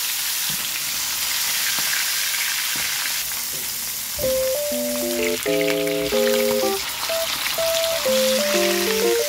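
Whole fish deep-frying in hot oil in a nonstick pan, a steady sizzle. About four seconds in, light background music of short melodic notes comes in over it.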